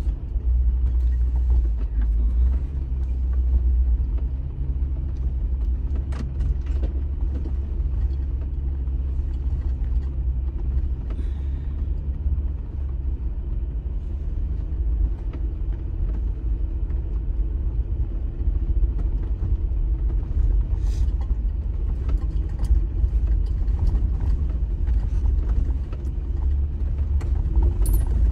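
Low, steady rumble of an off-road vehicle's engine and drivetrain heard from inside the cabin while it crawls along a rough dirt track, with scattered small knocks and rattles.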